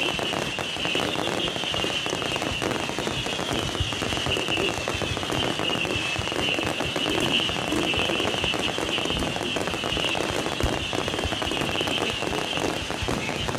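Fireworks crackling continuously, a dense run of sharp pops and snaps.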